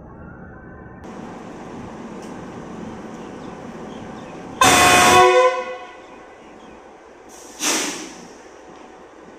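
Horn of a GEU-20 (GE U20C) diesel-electric locomotive sounding one very loud blast of just under a second, about halfway through, then a shorter blast a few seconds later: the departure signal.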